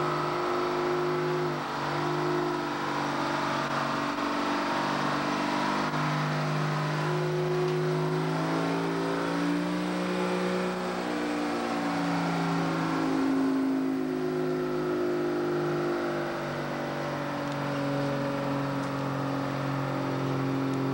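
Old Diamond T truck's engine pulling a semi-trailer away from a standstill. Its pitch climbs and drops back several times as it works up through the gears, then holds a steady, lower pull for the last several seconds.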